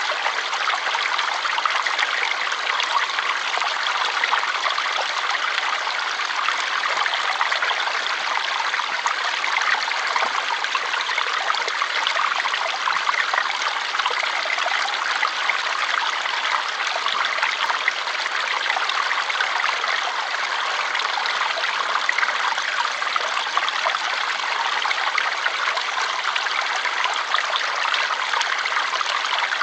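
Water flowing steadily in a stream, an even rushing and trickling with no breaks.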